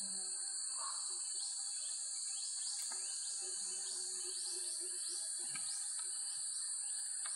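Steady high-pitched drone of forest insects, with a run of short rising chirps repeating every half second or so through the middle. A few faint knocks come through as well.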